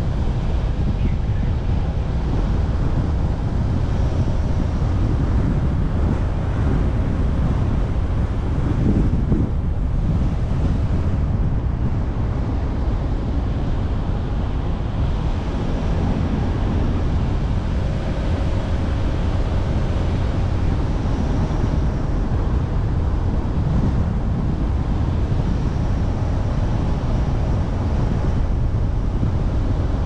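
Car driving along a road: steady rushing wind and road noise, with low wind rumble on the microphone.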